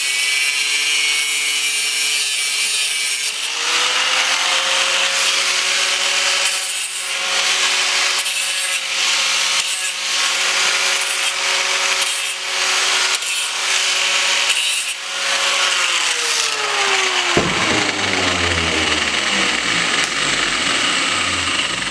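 Handheld 4.5-inch electric saw cutting through a transmission shift shaft: a steady motor whine with gritty cutting noise that comes and goes. The motor then winds down with a falling pitch over the last few seconds.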